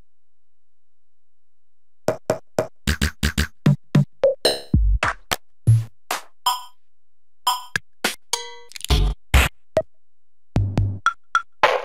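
Electronic drum-machine pattern played back from FL Studio's step sequencer. It starts about two seconds in with short, separate sampled hits (deep kicks, snappy percussion and a few brief synth blips), and a noisy swell comes near the end.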